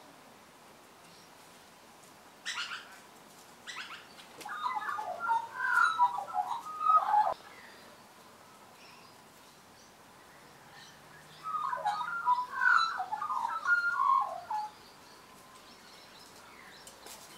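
Australian magpie warbling and chattering in two bursts of about three seconds each, the first a few seconds in and the second later on. A couple of short sharp clicks come shortly before the first burst.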